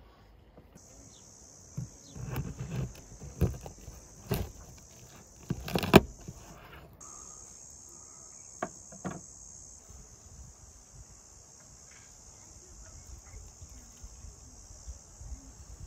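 Steady high-pitched chorus of insects that breaks off briefly about halfway through. Over it come sharp knocks of a knife and handling on a wooden board: a cluster in the first half, the loudest about six seconds in, then two more about nine seconds in.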